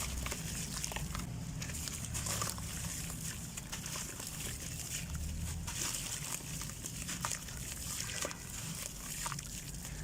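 Red dirt clumps crumbling in water: continuous fine crackling and fizzing with small sloshes.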